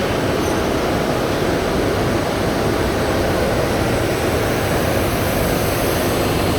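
Natural-gas burners of a porcelain kiln firing, a loud, steady rushing noise that holds unchanged throughout.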